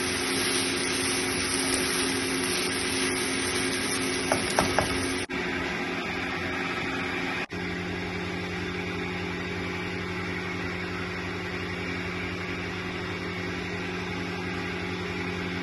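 Spiced chicken pieces frying in a nonstick pan, a steady sizzle, with a few light spatula clicks about four and a half seconds in. After two brief breaks, a steady mechanical hum with a low tone takes over.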